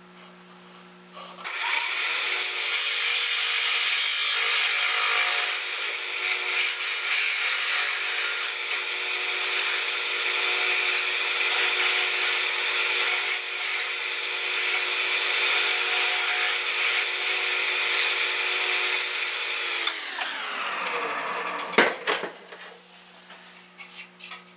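Wood lathe switched on about a second and a half in, turning a yellow birch bowl while a gouge cuts its inside, a steady machine tone under the noise of the cut. About twenty seconds in the lathe is switched off and winds down, its pitch falling, with a sharp click as it slows.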